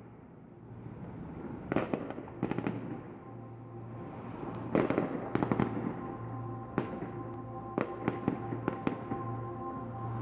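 Fireworks display: aerial shells bursting in irregular bangs, with the bursts coming faster in the second half.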